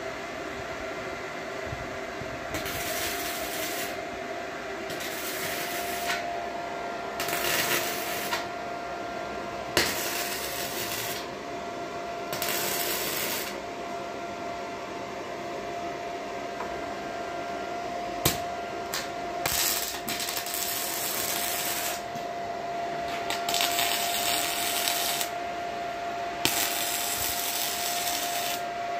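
Hitbox gasless (flux-core) MIG welder's arc crackling in repeated bursts of one to two seconds with short pauses between them, as steel on a car's rocker panel is stitch-welded. A steady hum runs underneath.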